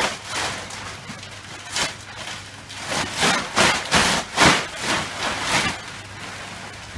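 Clear plastic mattress bag rustling and crinkling as it is shaken open and pulled over the top of an upright mattress: a run of irregular swishes, thickest and loudest in the middle.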